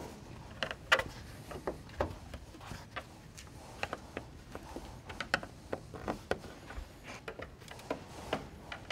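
Plastic pop clips in a 2007–2012 Chevy 1500's radiator dust cover being pried up with a small bent flathead screwdriver: a scatter of light, irregular clicks and snaps as the clips pop out.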